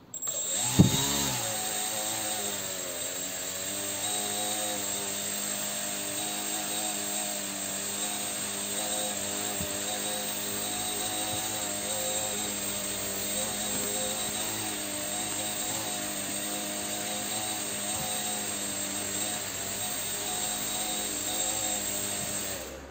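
RC airplane motor driving a fan propeller: it spins up quickly about a second in, then runs steadily with a slightly wavering hum and a high whine, and stops near the end.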